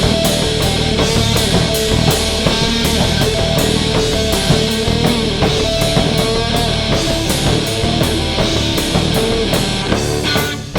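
Rock music from a studio recording: a full band with a drum kit keeping a steady beat under long held melodic notes. The texture thins and the level dips near the end.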